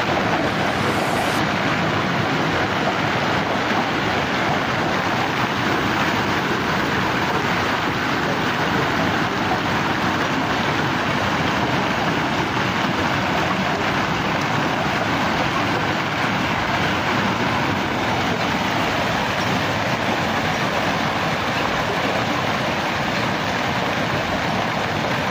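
Heavy rain mixed with hailstones pouring down, a dense, even rushing noise that holds steady throughout.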